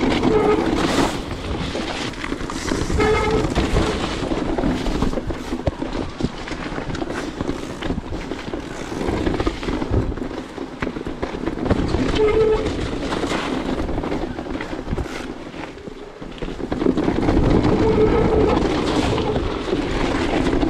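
Electric mountain bike ridden fast over a rough, rocky trail: tyres rumbling and crunching over stones and the bike rattling, with the motor's pitched hum swelling and fading several times.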